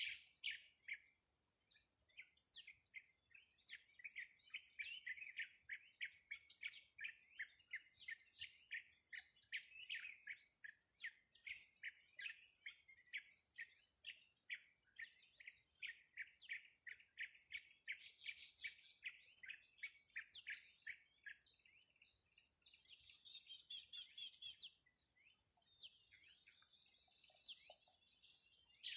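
Small songbird chirping: a long run of short, high notes, several a second, with a brief faster trill late on.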